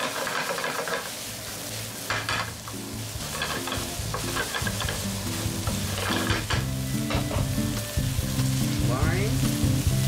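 Sliced eggplant, mushrooms and minced meat sizzling in an oiled nonstick frying pan over high flame, stirred with a wooden spatula in several scraping strokes. Soft background music comes in after a second or two.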